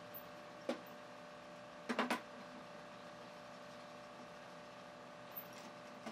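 A small electric motor running steadily with an even hum, with a few sharp knocks over it, a quick cluster of them about two seconds in.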